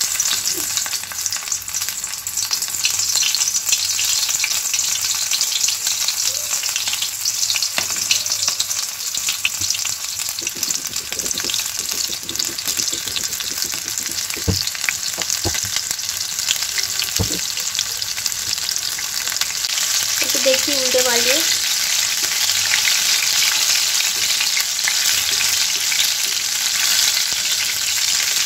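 Battered prawn pakoras deep-frying in hot oil in a pan: a steady, dense crackling sizzle that grows a little louder later as more pieces go into the oil.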